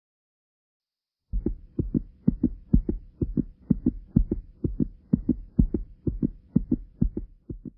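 Heartbeat sound effect: a fast, steady lub-dub of low double thumps, about two beats a second, starting about a second in, over a faint steady hum.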